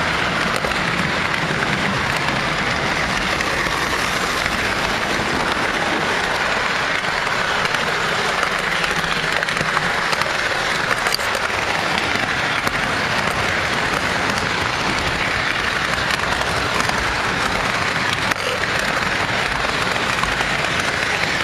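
O scale model train rolling along three-rail track, heard close up from a camera riding on it: a steady, even rattle of wheels on the rails with no breaks.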